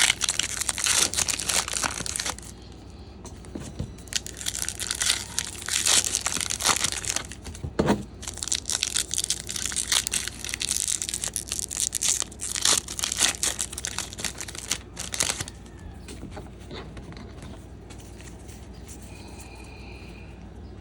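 Foil trading-card pack wrappers being torn open and crinkled by hand, in three spells of dense rustling, then much quieter for the last few seconds.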